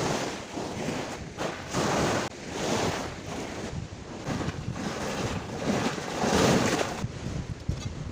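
Sea surf and wind, rising and falling in irregular noisy swells, with wind buffeting the microphone.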